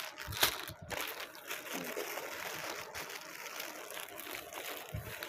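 Plastic packaging of a ladies' suit rustling and crinkling as it is handled, with scattered small clicks.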